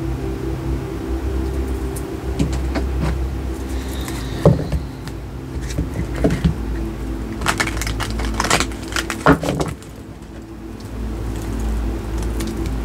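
Tarot cards being shuffled and handled: scattered crisp clicks and snaps, thickest in a run a little after the middle, over a steady low hum.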